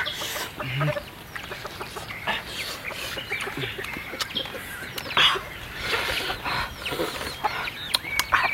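Domestic fowl clucking now and then, with scattered sharp clicks and short crackling noises.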